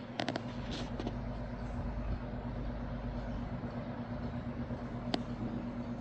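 Arctic Aire model 2077 box fan running, a steady motor hum with the low rumble of air from the blades, which grows just after a few clicks near the start. A single sharp click about five seconds in.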